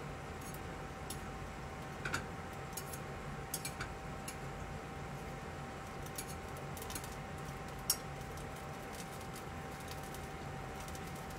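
Milk simmering in a stainless saucepan over a gas burner: a steady hiss with a faint constant hum, and scattered small ticks and pops as metal tweezers stir in a sprig of thyme. The sharpest tick comes about eight seconds in.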